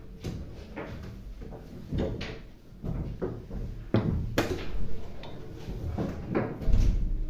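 Chess pieces being set down on the board and the chess clock being pressed during a time scramble: a quick run of sharp clacks, about two a second.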